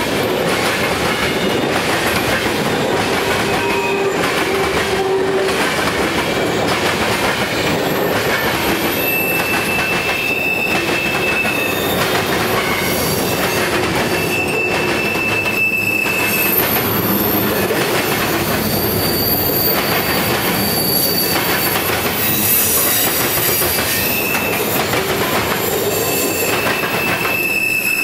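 Freight train of tank cars and covered hoppers rolling past close by: a loud, steady rumble and clatter of steel wheels on rail. Brief high-pitched wheel squeals come and go every few seconds.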